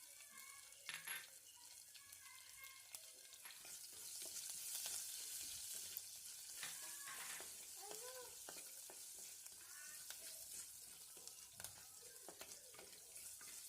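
Faint sizzling of chopped garlic and green chilli frying in hot coconut oil with tempered mustard, fenugreek and cumin seeds, stirred in the pan with a few light spoon clicks. The sizzle swells a little about four seconds in.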